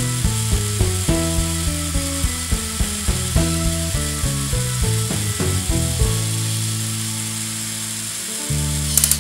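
Lego Technic M motor running the container truck's lift arms through its gears, a steady whir with clicking about four times a second, while the container is lowered. The motor stops about nine seconds in. Background music with changing notes plays under it.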